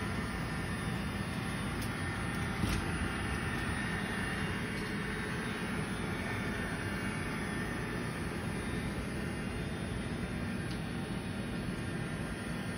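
A cheap robot vacuum running, giving a steady, even whirring noise, with one brief knock a little under three seconds in.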